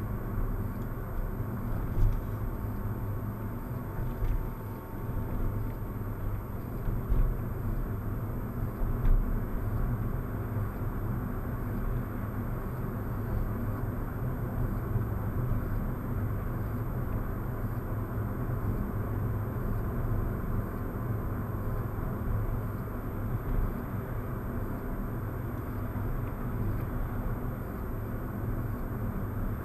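Road and engine noise inside a moving car, a steady low rumble with a few light knocks, as picked up by a FalconZero F170HD+ dash cam's microphone and replayed through speakers.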